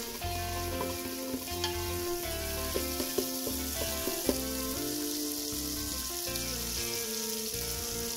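Curry leaves and ginger-garlic paste sizzling in melted margarine in an aluminium pot over low heat, with a few light scrapes and clicks of a spoon stirring them. Background music with held notes and a bass line plays underneath.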